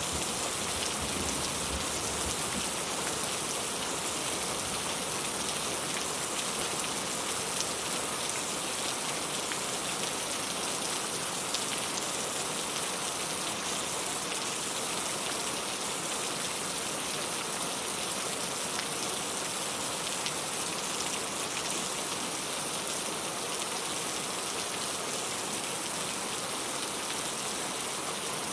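Steady rain falling, with a dense even hiss and scattered drops ticking on a surface.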